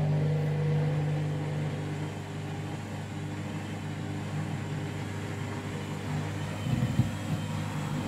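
Candy Grand'O Vita washing machine spinning a duvet in its 400 rpm final spin, the low speed preset by the duvet cycle. The drum and motor give a steady hum, with a few brief louder bumps about seven seconds in.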